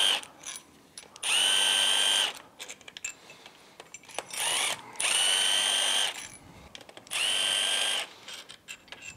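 Milwaukee M12 Fuel cordless impact spinning out already-loosened crankcase bolts of a Yamaha F225 powerhead. The motor whines steadily in short runs of about a second, five times, one of them brief, without hammering because the bolts are already broken loose. Light clinks of the bolts come between the runs.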